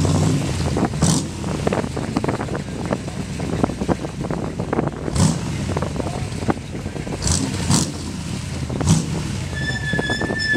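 Shelby 427 Cobra's side-oiler V8 running at low parade speed, its exhaust popping unevenly. A few short hisses cut in over it.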